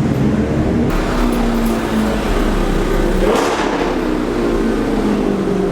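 Car engine running at low revs, with a short rushing burst about three and a half seconds in.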